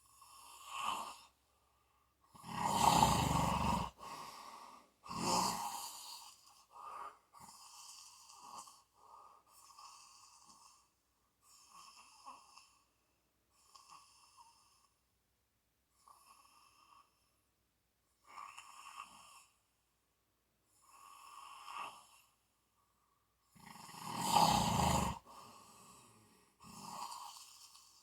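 A sleeping person snoring: two loud, deep snores, one about three seconds in and one near the end. Shorter, quieter breath sounds come every second or two between them.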